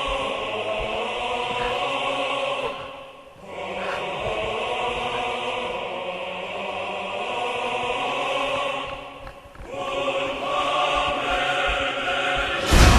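Background music with sustained choir-like voices holding chords, dipping briefly twice, then a louder section breaking in near the end.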